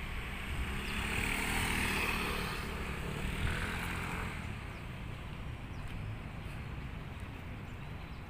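A motor scooter passing by on the road, its engine and tyre noise growing over the first couple of seconds and fading away by about four seconds in.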